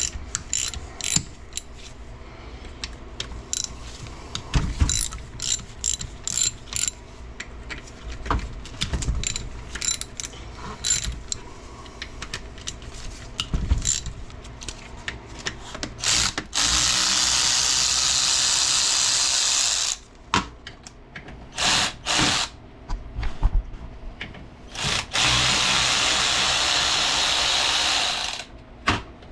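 A hand ratchet clicking in short runs as the retainer's 1/4-inch Allen-head bolts are loosened. In the second half a power tool runs steadily twice, each time for about four seconds, with short bursts in between.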